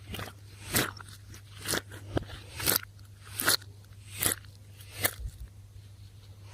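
Slime being squeezed and pressed by hand, giving a short, sharp pop about every second, six loud ones in all, with smaller ones in between.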